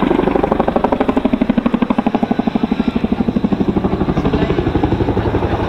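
Boeing Chinook helicopter's twin tandem rotors beating as it flies its display: a fast, even blade-slap pulse of about eleven beats a second, strongest in the middle and easing toward the end.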